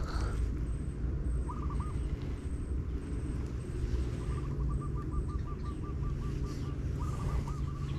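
A bird calling in short runs of quick repeated notes, with a longer rapid series about four seconds in, over a steady low outdoor rumble.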